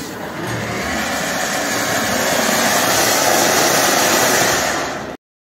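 Ground fountain firework (anar) spraying sparks with a steady hiss that grows louder over the first two or three seconds, then cuts off suddenly near the end.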